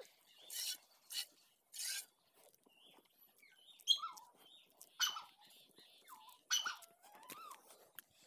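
Hand milking a cow into a steel pail: jets of milk squirting into the pail in short spurts, a few at a time with pauses between, mixed with small high chirps and squeaks.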